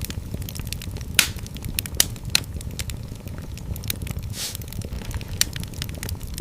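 Wood fire in a fireplace crackling, with irregular sharp pops (the strongest about a second and two seconds in) over a steady low rumble of the flames, and a short hiss about four seconds in.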